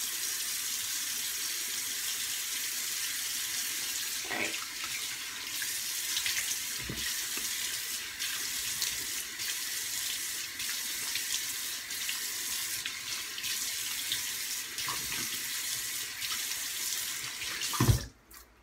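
Bathroom sink tap running steadily as a face is washed under it, with a few brief splashes. Just before the end there is a knock and the water stops abruptly as the tap is shut off.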